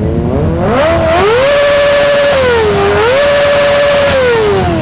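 Big sport motorcycle engine revved hard through its exhaust: the pitch climbs and holds high, dips briefly about halfway, climbs and holds again, then falls away near the end.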